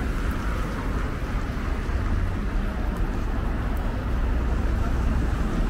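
City street traffic: a steady low rumble of passing cars and engines with a haze of road noise.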